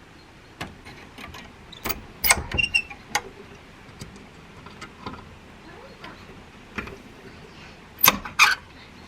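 Scattered clicks and knocks of things being handled, with a loud cluster about two seconds in and two loud knocks near the end.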